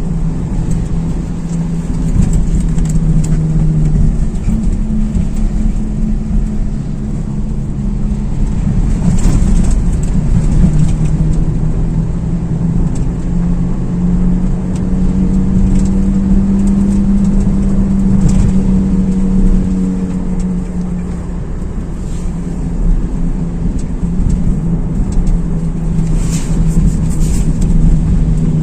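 A car driving on the road with a steady low drone from a worn wheel hub bearing, its pitch rising and falling gently with road speed, over tyre and road noise. A couple of brief knocks from bumps in the road.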